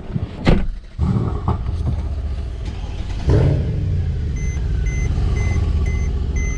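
Car engine idling and creeping as the car is manoeuvred around, with a sharp thump about half a second in and the engine swelling a little after three seconds. From about four seconds in, a parking-sensor beep repeats about two and a half times a second.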